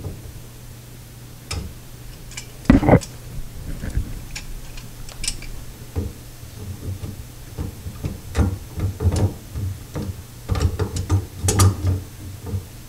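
Pliers tightening a plastic slip nut on a sink drain trap: irregular clicks and knocks as the jaws grip, slip and re-seat on the nut. The loudest knock comes about three seconds in, with a cluster of clicks near the end.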